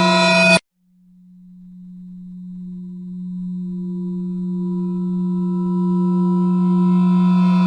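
Suspense sound effect: a low held drone tone with ringing overtones cuts off abruptly about half a second in. After a brief silence the same low tone fades back in and swells slowly louder as higher tones join it.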